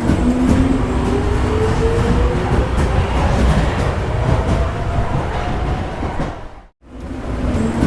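Subway train pulling away: a heavy rumble with a motor whine that rises slowly in pitch as it gathers speed. About seven seconds in, the sound drops out briefly and then starts again.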